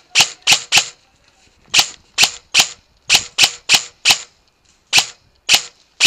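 VFC HK416 airsoft electric rifle (AEG) firing single shots in quick strings, each a sharp snap. There are about fourteen shots in groups of three to five, with short pauses between the groups.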